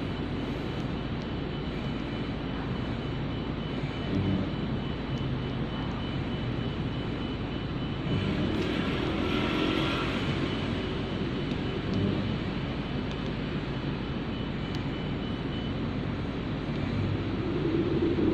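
Steady wind and road noise from riding a bicycle, growing louder for a few seconds about eight seconds in.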